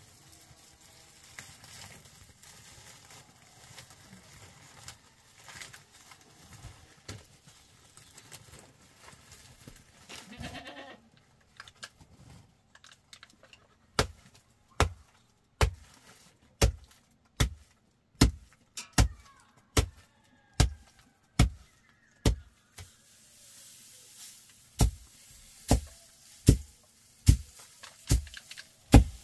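A goat bleats once about ten seconds in. From about halfway on come loud, sharp knocking blows at a steady pace of a little more than one a second.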